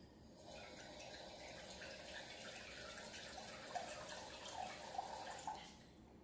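Kitchen tap running into a glass measuring cup, filling it with a cup of water; the flow stops about five and a half seconds in.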